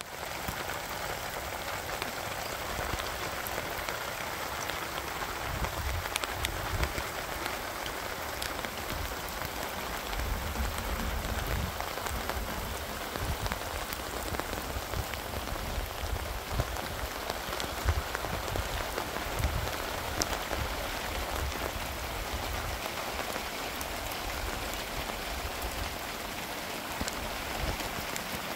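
Steady rain falling, with scattered individual drop hits and intermittent low rumbling.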